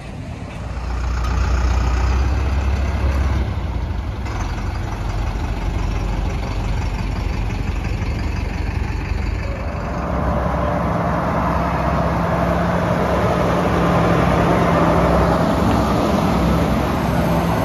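Heavy engines idling steadily with a deep rumble. A second, slightly higher steady engine hum comes in about ten seconds in.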